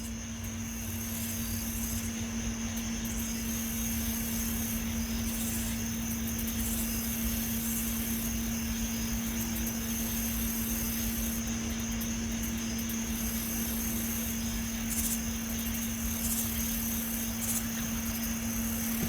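A steady, unexplained humming drone from the sky: a constant low hum with a thin high whine above it over a hissing background, holding one pitch throughout.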